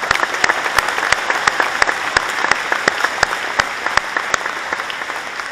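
Audience applauding, with one pair of hands clapping close by about three times a second over the general applause. The close clapping stops about four seconds in and the applause fades toward the end.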